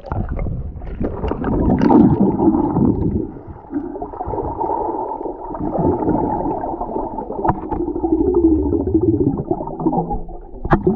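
Muffled underwater sound from a camera submerged in a pond: gurgling and bubbling water with a low rumble and brief crackles.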